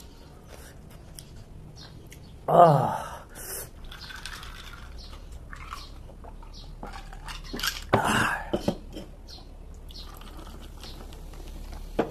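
Close-up chewing of crunchy raw vegetables, with many small wet mouth clicks. A loud vocal exclamation falls in pitch about two and a half seconds in, and another loud vocal sound comes around eight seconds in.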